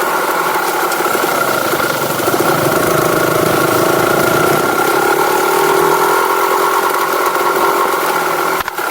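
Vehicle engine running steadily through its stock exhaust, its pitch drifting slightly up and down, with a brief drop in level just before the end.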